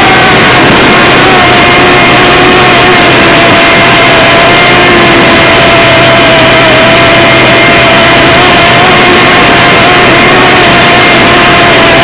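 Model airplane's motor and propeller heard from the camera on board in flight: a steady, very loud whine that wavers slightly in pitch, over a constant rush of air on the microphone.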